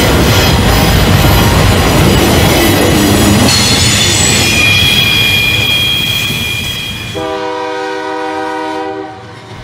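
Diesel freight train rumbling by with high, steady wheel squeal, then one horn blast of about two seconds near the end as the rumble fades.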